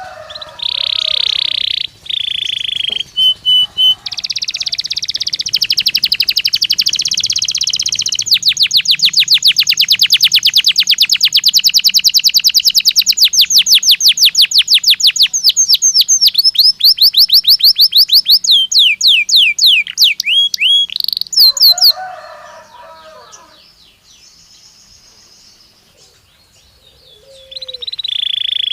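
Domestic canary singing a long rolling song. The trills turn into a run of rapid repeated notes, about ten a second, that slow toward the end of the phrase. The song breaks off for a few seconds of fainter, lower sounds, then starts again near the end.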